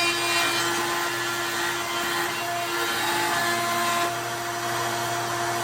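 A woodworking power tool running steadily under load, with a held whine over a steady hum.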